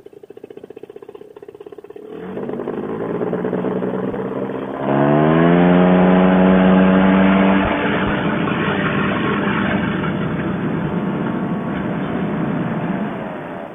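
Fresh Breeze Monster two-stroke paramotor engine and propeller on a trike: a pulsing idle, then throttled up at about two seconds, revving higher about five seconds in and held at full power, easing back a little about eight seconds in and running steadily until it drops off near the end.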